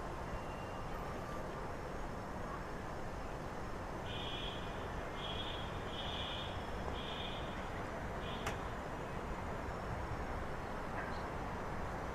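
Steady city background noise of distant traffic. About four seconds in, a run of five short high-pitched chirps about a second apart, then a single sharp click.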